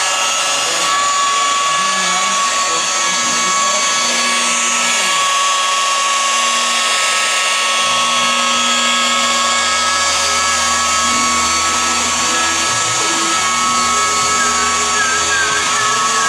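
Electric rotary buffer running steadily on automotive body paint, a continuous motor whine.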